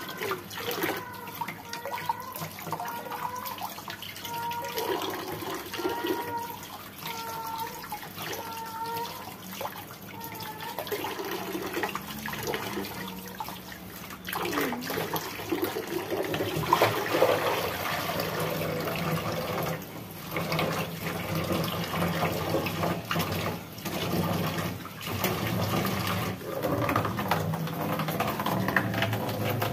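Kitchen tap running into a plastic basin in a stainless steel sink, with water splashing as hands wash leafy greens in it.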